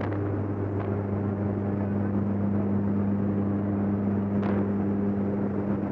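Jump plane's engine and propeller running steadily, a constant hum heard from inside the cabin with the door open and air rushing past.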